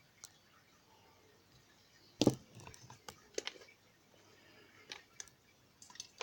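Handling of a padlock and lock-picking tools: one louder knock about two seconds in, then a few light clicks.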